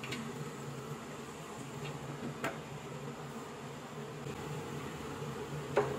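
A wok of chicken and potatoes simmering under a steady hum and hiss. There are sharp clinks of its glass lid about two and a half seconds in and, louder, near the end.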